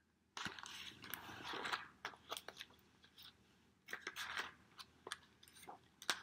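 Pages of a large hardcover picture book rustling and flapping as they are turned and handled. The sound comes in several short bursts, with small taps and clicks between them.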